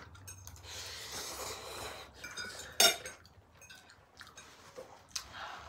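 Metal forks scraping and clinking on plates and bowls as two people eat noodles, with one sharp clink just under three seconds in.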